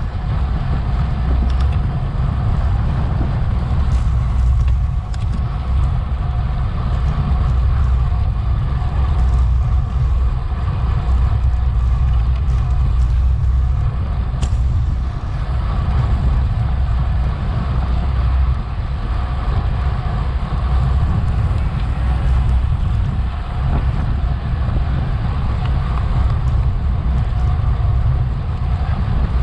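Wind rushing over a bicycle-mounted action camera's microphone as the rider races at speed, a steady loud low rumble, with fainter road and bike noise underneath.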